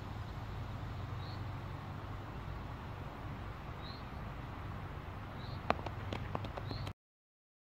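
Steel pétanque boule from a shot landing and clacking into the target boules: one sharp metallic clack about three-quarters of the way in, followed by a few lighter knocks over the next second. Under it there is a steady low outdoor rumble and a few faint high chirps, and all sound cuts off suddenly near the end.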